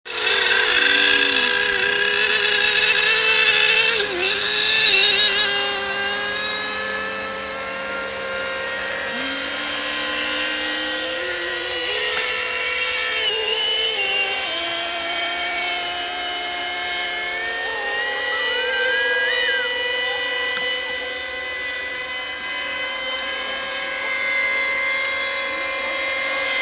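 Several radio-controlled model racing boats running flat out on the water: their small motors make overlapping high-pitched notes that each rise and fall in pitch as the boats circle the course.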